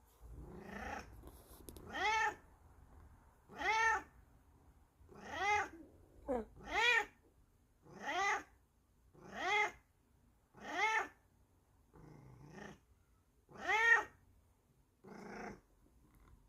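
Bengal cat meowing over and over, about ten drawn-out calls each rising then falling in pitch, spaced a second or so apart, with a short quick one midway: insistent wake-up meowing.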